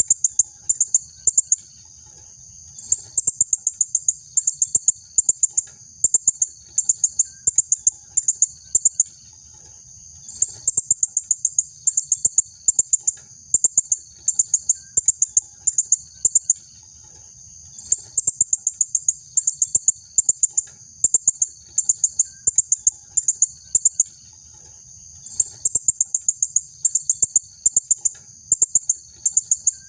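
Female blue-crowned hanging parrot (serindit) calling: rapid runs of sharp, very high-pitched notes, several a second, in bursts a few seconds long broken by short pauses.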